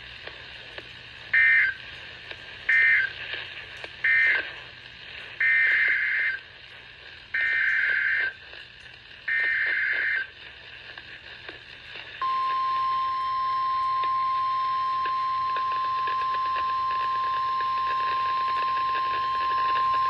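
NOAA Weather Radio on 162.550 MHz heard through a handheld radio's speaker: three short bursts of SAME digital data tones (the end-of-message code closing the tornado warning), then three longer bursts (the coded header of a new alert). About twelve seconds in, the steady 1050 Hz weather-radio warning alarm tone starts and holds.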